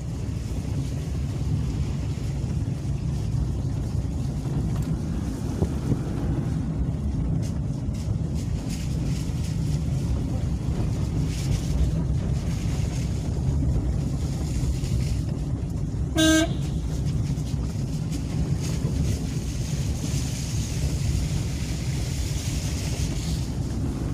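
Steady road and engine rumble heard from inside a moving car's cabin. About two-thirds of the way through, the car's horn gives one short toot.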